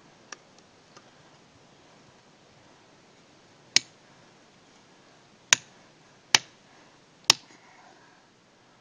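A wooden stick striking the back of a metal blade held against a birch trunk: two light taps near the start, then four sharp knocks a second or two apart in the second half. The blade is being driven into the bark to tap the birch for sap.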